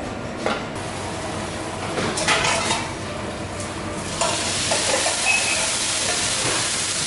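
Food sizzling on a hot griddle, with metal clinks as dome lids are lifted off and set down. The sizzle grows louder about four seconds in, when a lid comes off.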